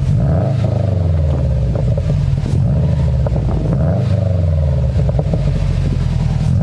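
Subaru WRX's turbocharged flat-four engine revved repeatedly, heard from the rear of the car, its pitch climbing and falling several times, with a newly fitted K&N air filter.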